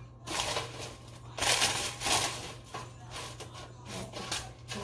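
Baked fries being pushed and flipped around on a baking tray: irregular scraping and rustling, loudest a little after the first second, over a steady low hum.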